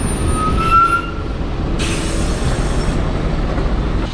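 Route bus running with a steady low engine rumble, a thin high brake squeal in the first second, and a short hiss of released air just under two seconds in.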